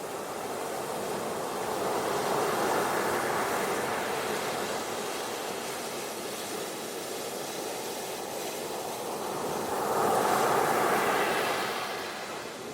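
Ocean surf washing onto a beach: a steady rush of water that swells twice, as waves come in about two seconds in and again about ten seconds in.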